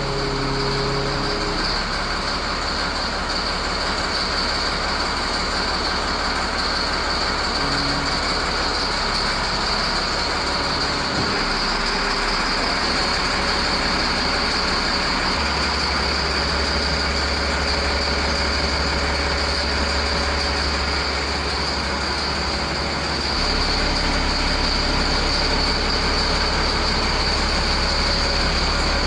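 A steady vehicle rumble that starts suddenly and holds level, getting a little louder about two-thirds of the way through.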